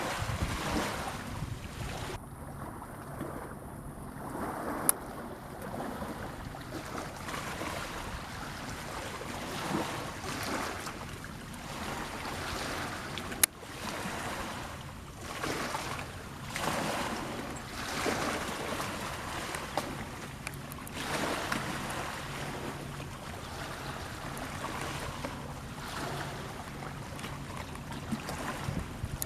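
Wind on the microphone over washing sea water, swelling and easing every second or two, with a faint steady low engine hum underneath and a single sharp click about halfway through.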